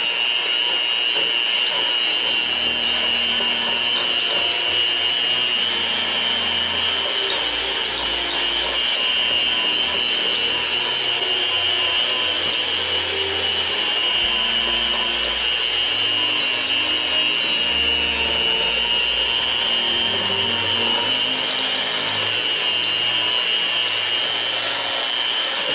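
Electric hand mixer running steadily with its beaters whisking cake batter in a stainless steel bowl, a constant motor whine over a rushing hiss.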